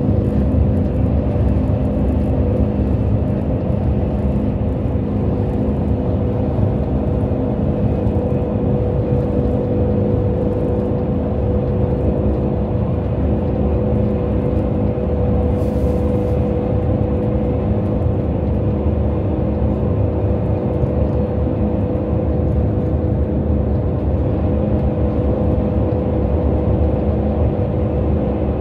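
KTX high-speed train heard from inside the passenger cabin while running at speed: a steady low rumble with a constant hum over it. A brief faint hiss comes about halfway through.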